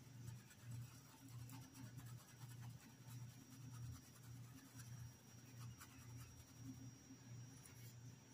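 Faint, rhythmic rubbing of a paintbrush on a cotton dish towel, about two strokes a second, as fabric paint is scrubbed into the cloth.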